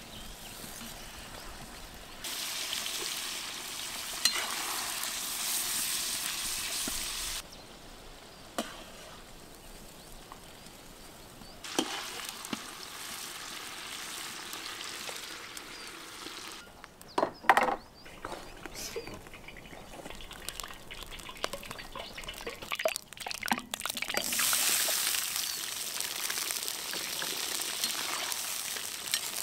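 Hot oil frying and sizzling in a cast-iron kazan, in two long stretches of steady hiss with quieter sizzling between them; near the end, sliced onions are frying in it. A few sharp metal clinks from a slotted skimmer come about two-thirds of the way through.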